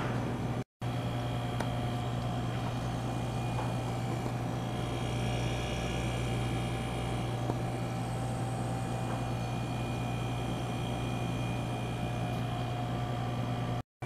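A 1/3 hp Tecumseh hermetic fridge compressor running with a steady hum, its motor running hot on a temporary flush oil charge to mix old and new oil. The hum is broken by two very short silent gaps, about a second in and just before the end.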